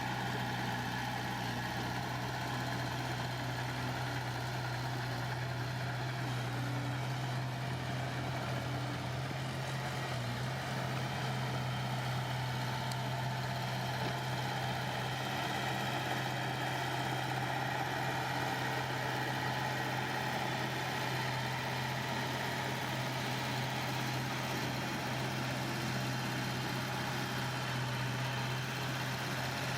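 Engine of a heavy construction machine running steadily at an even speed, with no revving or change in load.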